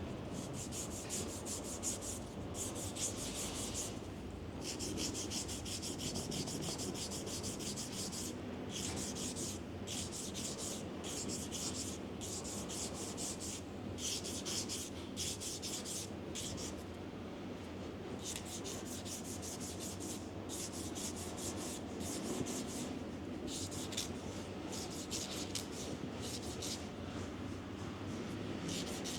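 Nail file rasping quickly back and forth over nails, in runs of fast scratchy strokes a few seconds long with short pauses between.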